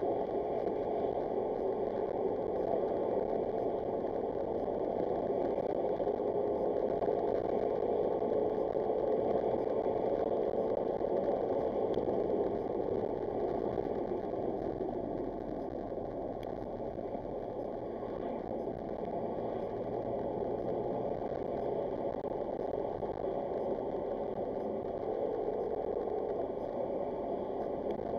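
Car engine and road noise heard from inside the cabin while driving. A steady engine hum fades and drops about halfway through, then returns near the end.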